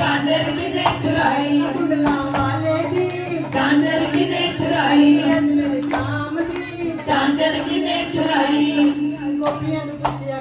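A group of women singing a Punjabi devotional bhajan into microphones, with hand-clapping keeping a steady beat and a steady held low note underneath.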